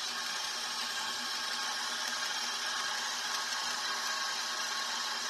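Electric stand mixer running steadily, its beater turning through runny crepe batter in a stainless steel bowl: an even motor whirr with a faint low hum.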